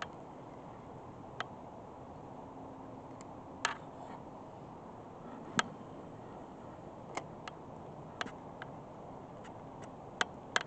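Steady wind noise, with about a dozen sharp, irregular clicks and taps over it.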